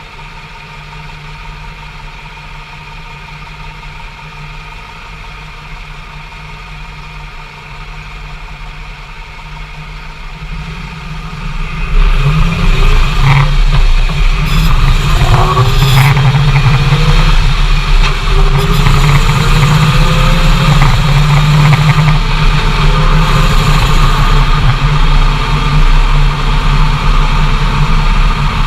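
Inside the cab of a Dodge Ram 2500HD with a Hemi V8 and a six-speed manual. The truck runs steadily and fairly quietly, then about twelve seconds in it gets much louder and accelerates, with the engine pitch rising twice as it pulls through the gears. Accelerating after a shift is when the owner hears a shearing, rattling drivetrain noise, which he suspects comes from the transfer case.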